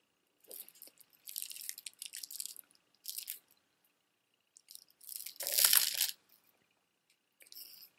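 Strands of plastic beads clattering and rustling as a necklace is handled, in several short bursts, with a louder clatter just after five seconds in.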